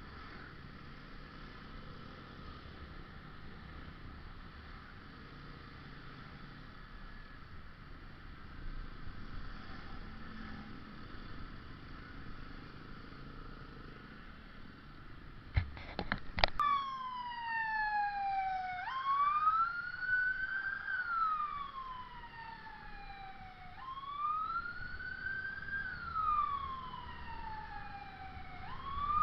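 Steady road and traffic noise. About halfway through come two sharp clicks, and an ambulance siren starts wailing, sweeping slowly down and up in pitch about every five seconds.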